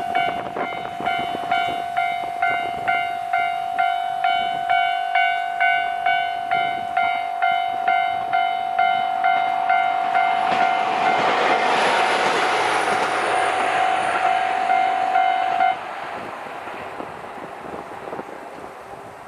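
Japanese level-crossing warning bell ringing in a steady rhythm, about one and a half strokes a second, over a constant tone. About ten seconds in, a JR Hokkaido H100 (DECMO) diesel-electric railcar passes through the crossing. A few seconds later the bell stops suddenly, leaving the train's sound fading away.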